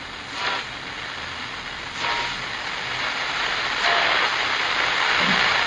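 Television static hiss, a steady rushing noise with a few brief electronic blips, growing louder from about two seconds in.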